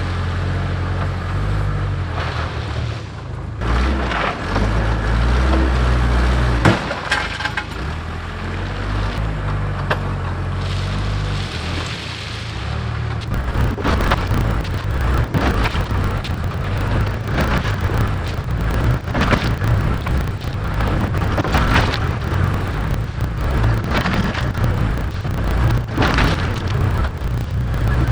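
Case 580K backhoe's diesel engine working under load, its pitch rising and falling, while the loader bucket pushes and spreads #2 limestone. The rocks clatter and crack, more densely from about halfway through.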